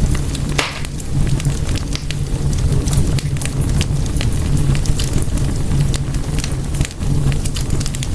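Wood fire in a fireplace crackling, with frequent sharp pops and snaps over a steady low rumble of the flames. One louder pop comes about half a second in.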